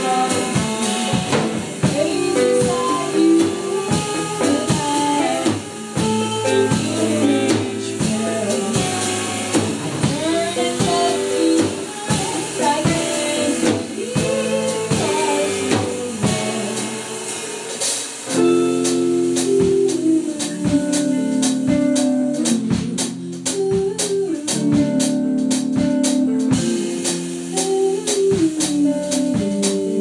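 A small band playing a song live, with drum kit, guitar and a singing voice. About two-thirds of the way through, the playing changes to long held chords under steady drum hits.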